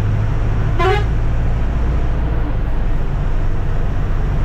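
Ashok Leyland sleeper coach's engine running at speed, a steady low drone with road noise as heard inside the driver's cabin. A brief sharp tone cuts in about a second in.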